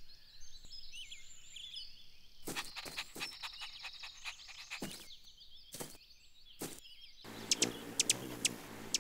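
Birds chirping in a cartoon outdoor soundscape, followed by a series of sharp taps and, near the end, a stretch of noise with a few high clicks.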